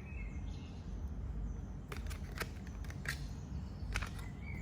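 A handful of light clicks and taps as a metal nail file is fitted into the compartments of a plastic toolbox, over a steady low background noise.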